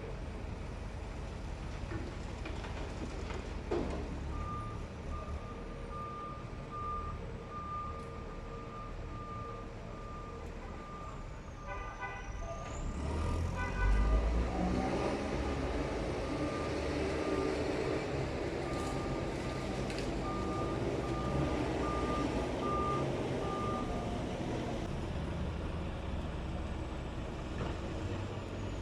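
Reversing alarm on a heavy diesel vehicle beeping steadily, a little faster than once a second, over the rumble of its idling engine. About fourteen seconds in the engine revs up and labours under load, with the beeping carrying on through it.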